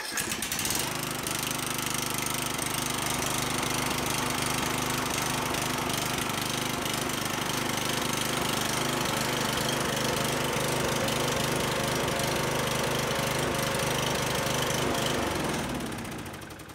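Briggs & Stratton riding mower engine running steadily at full throttle, then shut off near the end and winding down to a stop.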